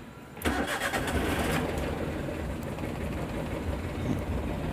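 2010 Maruti Suzuki Alto's three-cylinder petrol engine starting up about half a second in, louder for the first second as it catches, then running at a steady idle.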